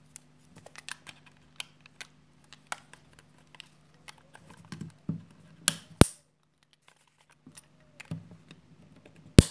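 Small screwdriver prying at the plastic clips of a Philips HQ7340 electric shaver's housing: scattered light clicks and scrapes of metal on plastic, with two sharp snaps, one about six seconds in and one near the end.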